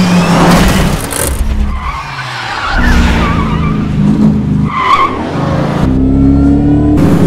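Film-soundtrack car chase: a car engine revving hard, its note dropping and climbing again in steps, with tyres squealing and skidding in the middle.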